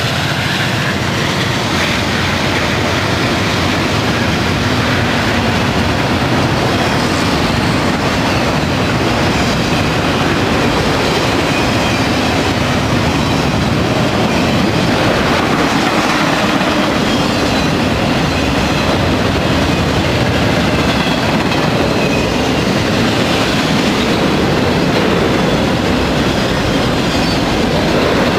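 CSX freight train passing close by: its locomotives at the start, then a long string of autorack cars, wheels running on the rails in a loud, steady rumble.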